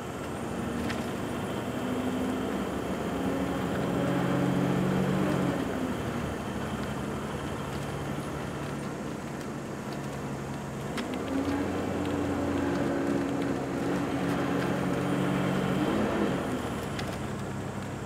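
Engine and road noise heard from inside a moving vehicle. The engine's hum twice grows louder and higher, then drops back.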